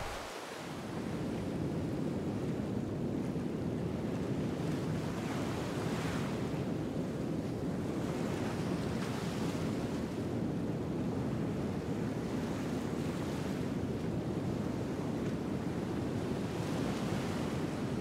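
Ocean surf: a steady rush of waves, swelling brighter now and then as a wave washes in.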